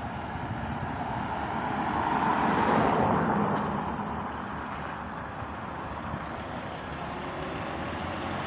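DAF articulated tanker lorry driving out and turning past close by. Its diesel engine and tyre noise rise to a peak about three seconds in, then carry on steadily as it swings round the corner.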